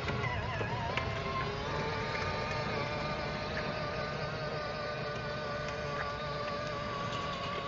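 Steady electric whine of a battery-powered ride-on toy Ferrari's motors and gearboxes as it drives along, over a low rumble. The whine wavers in pitch for the first second or so, then holds steady.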